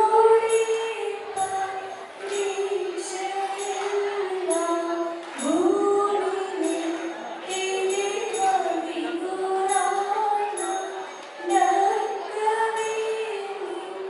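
Indian song with a female voice singing a gliding melody over a steady beat of jingling percussion, the dance music for a group stage dance.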